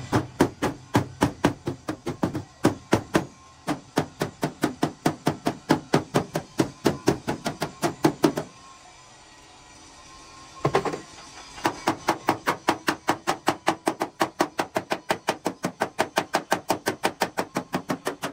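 Rapid, even hammer blows on sheet metal, about four to five a second, as a damaged truck cabin panel is beaten out. The hammering stops for about two seconds just past the middle, then one heavier blow lands and the steady blows resume.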